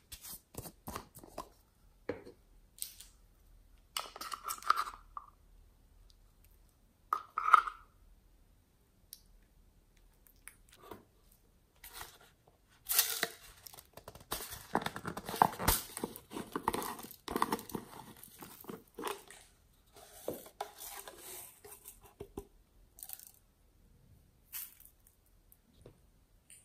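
Hard plastic toy containers being gripped and worked in the hands: scattered plastic clicks and rubbing, with two short squeaks in the first eight seconds. A longer stretch of dense crackling and rubbing follows in the middle.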